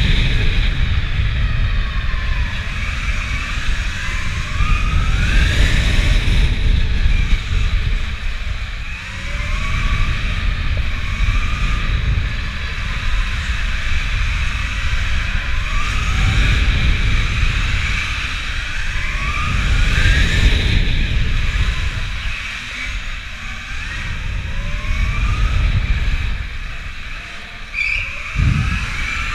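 Electric motor of a KTM Freeride E supermoto whining under acceleration. The pitch rises again and again as the throttle opens out of corners, over a heavy low rumble.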